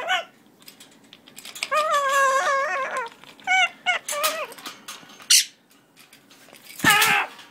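Red-fronted macaw vocalizing in protest at someone reaching for his toys. It gives two wavering, whining calls, a brief thin high squeak, then a loud harsh squawk near the end, with scattered clicks between them.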